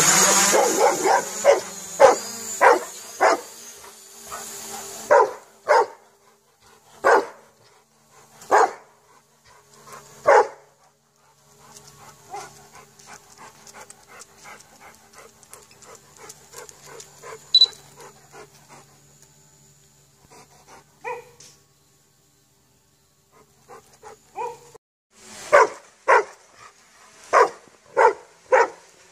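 A black dog barking repeatedly at a DJI quadcopter drone. At the start the drone's motors spin up with a rising whine under a quick run of barks. Then come single barks every second or two, a quieter stretch with few barks midway, and another fast run of barks near the end.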